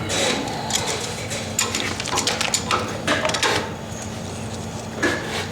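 A quick run of metal clinks and rattles from tools and fittings being handled, busiest from about one and a half to three and a half seconds in, over a steady low hum.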